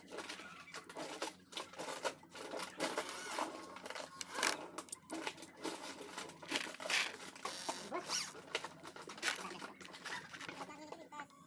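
Irregular knocks, taps and scrapes of wooden pieces being handled and worked by hand, with no steady rhythm.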